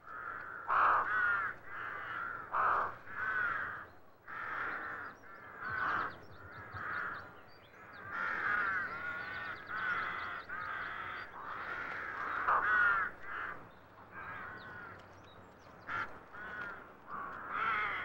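Rooks cawing: a continuous run of repeated caws, many close together or overlapping.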